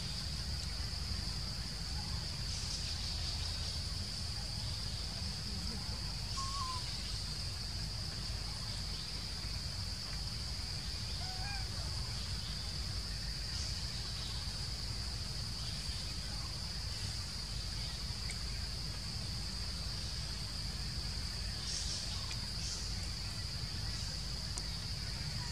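Forest ambience: a steady high-pitched insect drone with a low rumble underneath, and a few faint bird chirps now and then.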